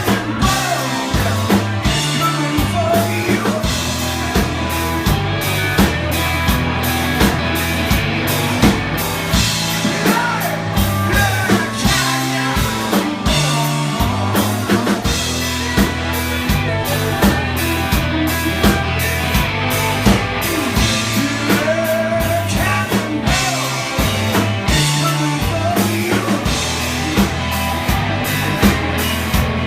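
Rock band playing live: drum kit keeping a steady beat under bass, guitar and singing.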